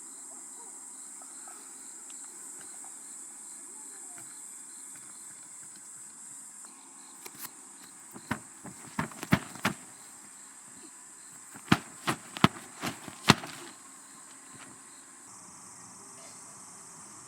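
Insects chirring in a steady high chorus, with a softer chirp pulsing about one and a half times a second. About a third of the way in comes a run of a dozen or so sharp clicks and knocks, louder than the insects, which stop a few seconds before the end.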